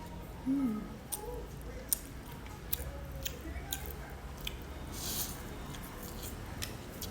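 Close-miked mouth sounds of eating noodles: chewing with many short wet clicks and lip smacks, and a longer hissy sound about five seconds in.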